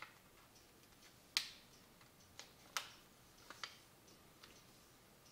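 A sheet of paper being folded and creased by hand on a wooden table: a handful of short, crisp crackles and taps, the sharpest about a second and a half in.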